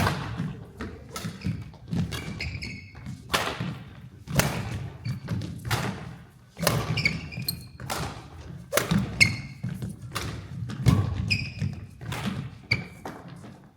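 Badminton rally: racket strikes on the shuttlecock and thudding footsteps and lunges on the court, in a dense irregular run of sharp hits. Short high squeaks of court shoes on the floor come about half a dozen times.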